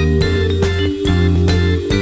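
Background music: a guitar-led tune over a bass line, with a steady beat.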